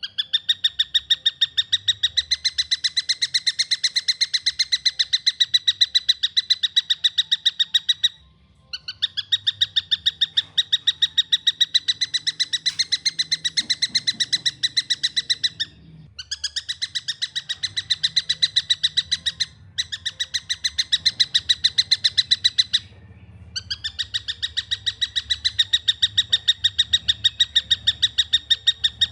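Young tengkek buto kingfisher calling: long runs of fast, evenly spaced chirping notes, each run lasting several seconds, broken by a few short pauses.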